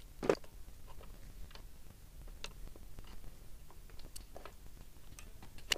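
Scattered light metallic clicks and ticks of a hand tool working at a bicycle's crank, fastening a pedal, with a sharper click near the end.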